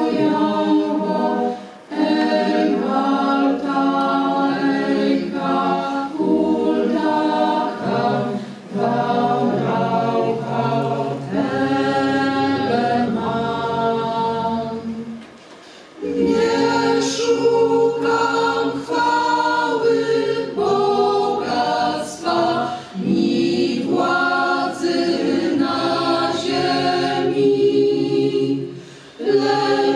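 Mixed choir of men's and women's voices singing a cappella in sustained chords, phrase by phrase, with short breaks for breath; the longest break comes just past halfway.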